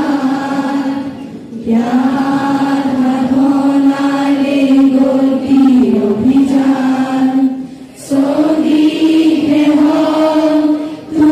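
A small group of voices singing a slow song together in unison, long held notes, with short breaks between phrases about a second and a half in, near eight seconds in and near the end.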